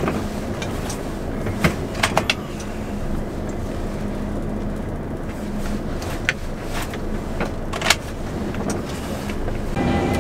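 Volvo truck's diesel engine idling, heard inside the cab as a steady low hum, with a few sharp clicks and knocks from handling things in the cab. Near the end it switches abruptly to the louder, fuller engine and road noise of the truck under way.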